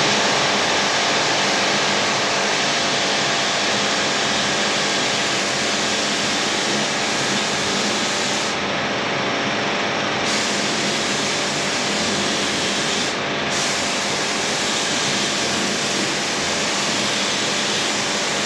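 Paint spray gun hissing steadily as it lays a coat of edge primer; the hiss thins briefly about nine seconds in and again around thirteen seconds.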